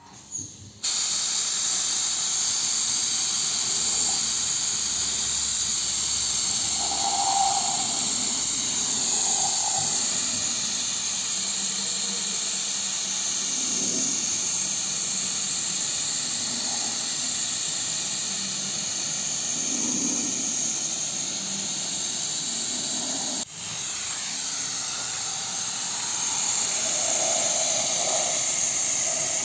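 Gravity-feed paint spray gun hissing steadily as compressed air atomises paint. The hiss starts about a second in and breaks off briefly near the end before resuming.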